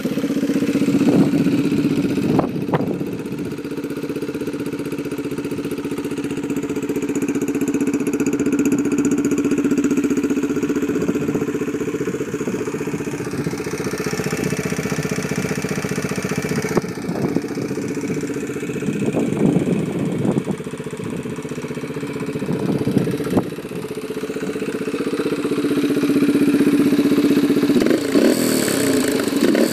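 Freshly rebuilt Yamaha TT-R125's air-cooled single-cylinder four-stroke engine idling steadily just after starting.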